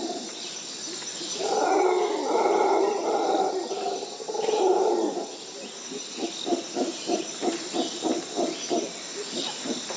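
Loud rainforest animal calls: two long, deep roaring calls, then a quick run of short rhythmic grunts at about four a second.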